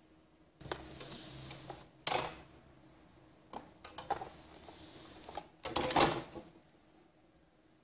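Cotton patchwork pieces rustling and rubbing as they are folded and smoothed by hand on a padded pressing surface, in three spells with a sharp rustle about two seconds in and the loudest just before the end.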